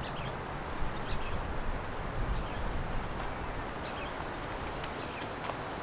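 Outdoor ambience: a steady rush of wind on the microphone with a low, uneven rumble, and a few faint, short bird chirps scattered through it.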